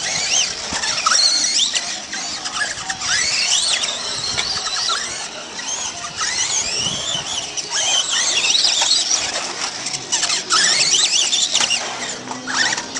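Radio-controlled off-road trucks' motors whining as they drive around a dirt track, the high-pitched whine rising and falling again and again with the throttle.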